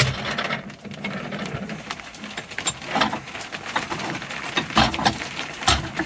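Hammers being handled on a steel wall rack, their heads and handles knocking and clinking against the metal arms in scattered, irregular knocks.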